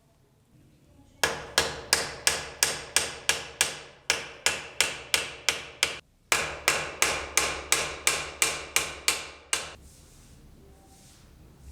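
A hammer striking in a steady run of blows, about three a second, with a brief pause about six seconds in; each blow rings briefly. The blows stop a couple of seconds before the end.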